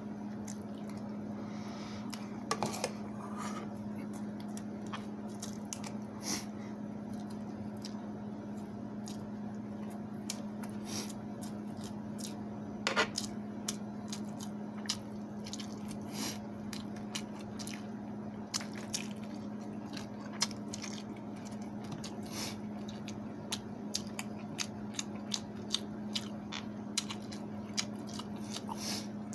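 Close-up eating sounds: wet squishing of soft food handled and dipped by hand, and chewing. Scattered sharp clicks and taps of a metal spoon on the rice pot and steel sauce bowl, the loudest about 13 seconds in, play over a steady low hum.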